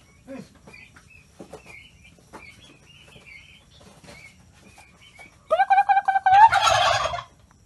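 Domestic turkeys calling: small high-pitched peeps, then a loud pitched call from one bird about two-thirds of the way in that lasts nearly two seconds and turns rough and rattling before it stops.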